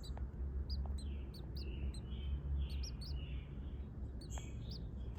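Newly hatched nestling birds chirping: a run of short, high peeps, roughly two a second, over a steady low rumble.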